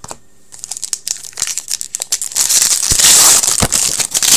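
Hockey card pack wrapper being handled: light crinkles and clicks, then from about two seconds in a loud stretch of crinkling and tearing as the pack is ripped open, which stops sharply near the end.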